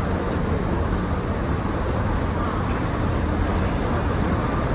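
Steady running rumble of a New Orleans streetcar, heard from on board as it travels along the track.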